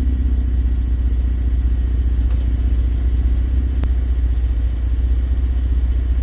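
Ford 3.7 Duratec V6 idling, heard close to the tailpipe as a steady, even exhaust rumble. A single sharp click comes about four seconds in.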